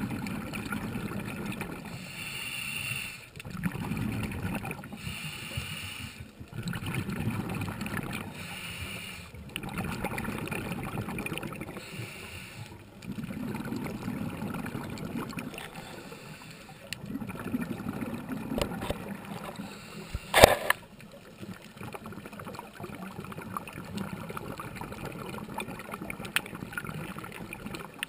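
Scuba diver's regulator breathing, heard underwater: each exhale sends out a gurgling rush of bubbles and each inhale a short hiss, repeating every few seconds. A single sharp click about two-thirds of the way through is the loudest sound.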